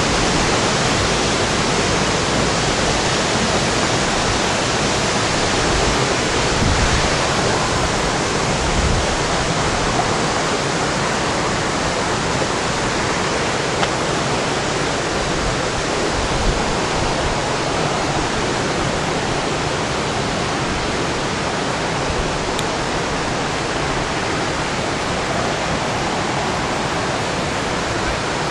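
Rushing water, a loud, steady, even wash of noise.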